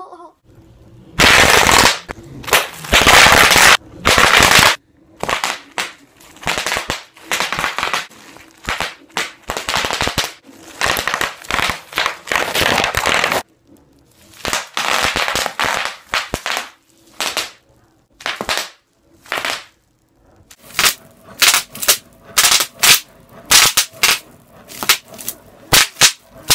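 Bubble wrap popping and crackling under the wheels of a self-balancing hoverboard, in dense bursts with short pauses between them. In the last few seconds it turns into a quick series of separate sharp pops.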